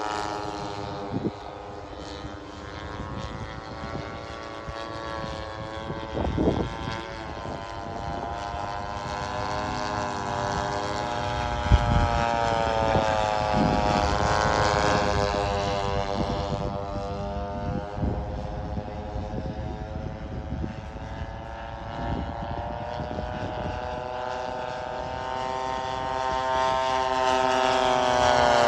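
Two large-scale radio-controlled warbird models, an A-24 Banshee on an EME 35 two-stroke gas engine and a Top Flite Zero, flying past in formation: their engines and propellers drone, the pitch sliding up and down as the planes pass. The sound grows louder near the end as they come close. A couple of brief low thumps come in about six and twelve seconds in.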